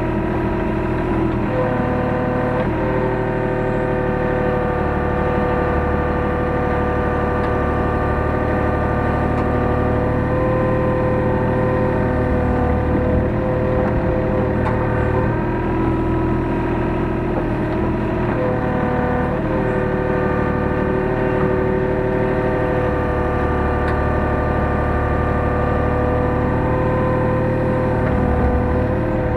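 Hyundai R35Z-9A mini excavator's diesel engine running steadily while the machine digs and loads, heard from inside the cab. Its tone shifts every few seconds as the boom and bucket work.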